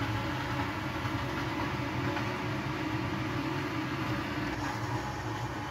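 Water poured from a ladle into the steam port of a wood-fired sauna stove with a closed stone heater, turning to steam inside with a steady rumbling hiss.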